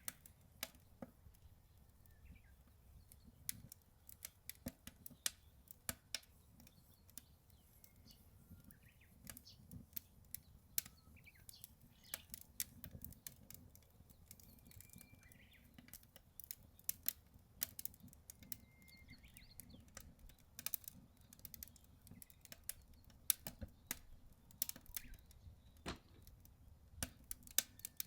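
Wood fire crackling in a Solo Stove Ranger fire pit: irregular sharp pops and snaps, several a second at times. Under it is a low wind rumble on the microphone, with a few short bird chirps.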